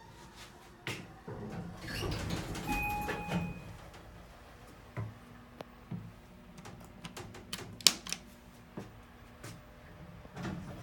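Otis Series 1 elevator car in service: a brief two-tone chime about 3 seconds in, then a steady low hum with a run of sharp clicks, the loudest near the middle, and the car doors opening near the end.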